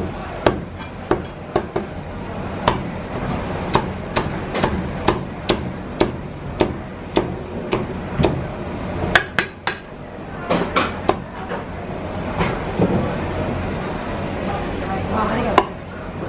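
Chinese cleaver chopping crispy roast pork on a thick wooden chopping block: a long run of sharp chops, irregular at about one or two a second, with a short pause near the end.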